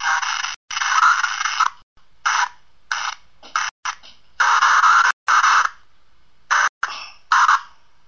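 Choppy bursts of static-like hiss that cut in and out abruptly, about a dozen in a row, each lasting from a fraction of a second to about a second.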